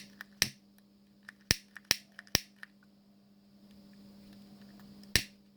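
Lighter being struck again and again to light a candle, about six sharp clicks with a pause in the middle, the flame not catching.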